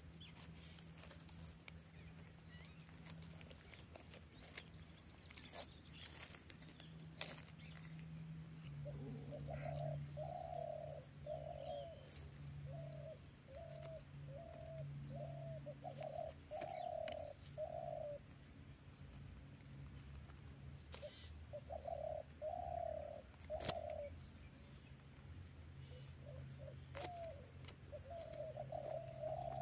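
A bird in the background calls in cooing, dove-like notes: runs of short, even notes at a little over one a second, in three bouts starting about nine seconds in. A low steady hum and scattered faint clicks lie underneath.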